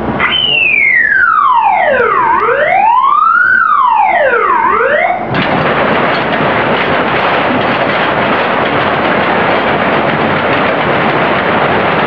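A pitched whine sweeps down and up twice like a siren, then cuts off about five seconds in. Loud, steady rushing mechanical noise from running machinery takes over for the rest.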